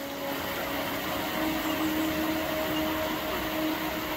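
River water rushing steadily over rocky shallows, with a faint steady hum underneath that steps up slightly in pitch about a second and a half in.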